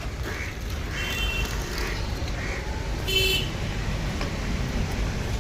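Road traffic rumbling steadily, with short vehicle horn toots; the loudest is about three seconds in.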